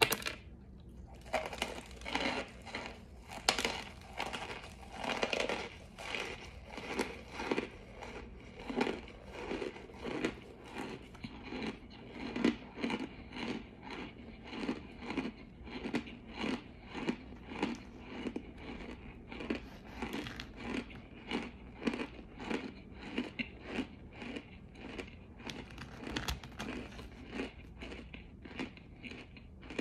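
Close-up crunchy chewing: a person biting and chewing something crisp with a steady, even rhythm of roughly two crunches a second.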